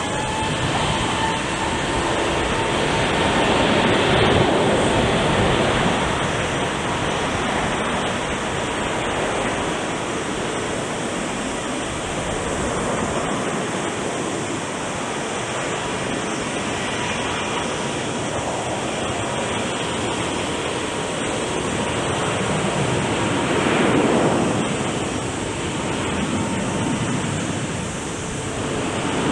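Jet engine noise from a departing Airbus A380 with Rolls-Royce Trent 900 engines: a loud, steady rushing sound that swells slightly about four seconds in and again near the end.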